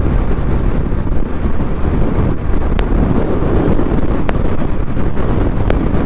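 Wind rushing over the microphone of a motorcycle riding at speed on a highway, a steady loud noise mixed with road and engine noise. A few brief faint clicks come through the middle of it.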